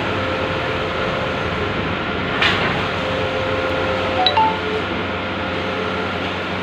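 Large-format outdoor printing machine running with a steady hum, with a brief hiss about two and a half seconds in and a short metallic clink a little past four seconds.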